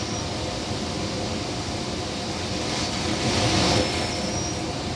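Steady rushing background noise, with a brief, louder hiss a little past the middle.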